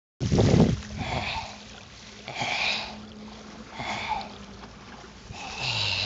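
Heavy, wheezy breathing close to the microphone, about one breath every second and a half, starting with a handling thump; near the end a breath carries a low voiced grunt.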